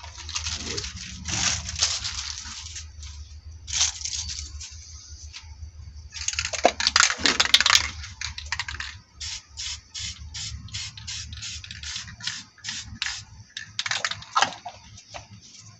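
Crumpled plastic sheet crinkling as it is lifted off wet spray paint, then an aerosol spray-paint can hissing, first in one longer spray and then in a quick run of short puffs, about three a second.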